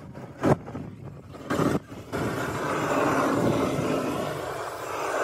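A couple of sharp knocks, then from about two seconds in the steady rushing roar of a hand-held gas torch burning, its flame aimed at a car headlight housing.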